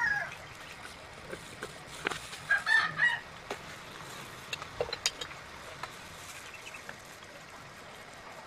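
A rooster crowing once, about two seconds in, with the end of another call right at the start and a few short clicks a couple of seconds later.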